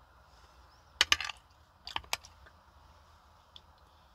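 Close-up eating sounds: a quick cluster of sharp, crisp crunches about a second in, then two more clicks around two seconds in, over quiet background.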